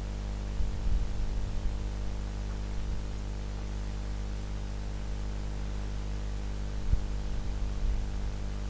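Steady electrical mains hum at 50 Hz and its overtones under a faint hiss, with a few soft low knocks about a second in and again near seven seconds.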